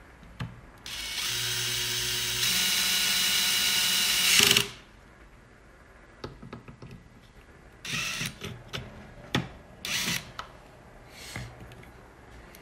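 DeWalt cordless drill driving screws into a steering wheel assembly. Its motor runs for nearly four seconds, speeding up about halfway through before stopping suddenly, then gives three short bursts, with small clicks of parts being handled in between.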